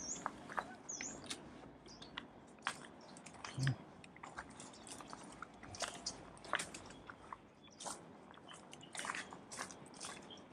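A hiker's footsteps and trekking pole crunching and clicking on a leaf-littered dirt trail, an irregular run of short crunches.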